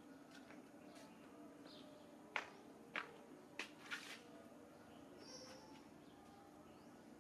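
Quiet forest ambience with a faint steady hum. Four short, sharp sounds come quickly one after another, about two to four seconds in, and a faint high chirp follows a second later.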